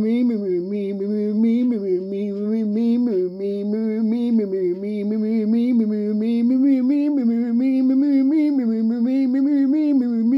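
A single voice chanting on one near-steady, mantra-like pitch, wavering slightly up and down without pausing for breath.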